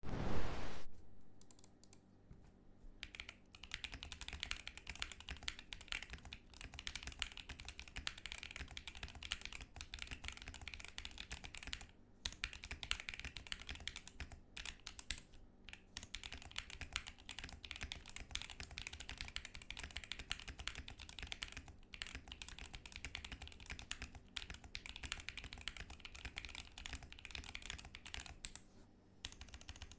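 Rapid continuous typing on a Noir N2 Pro mechanical keyboard in a custom case, a dense run of keystroke clacks with a few brief pauses. There is a short loud noise at the very start.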